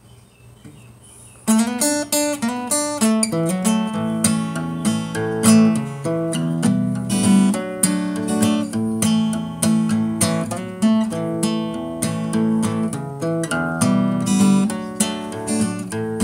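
Acoustic guitar playing a song's instrumental intro, plucked notes and chords. It starts about a second and a half in, after a faint hiss.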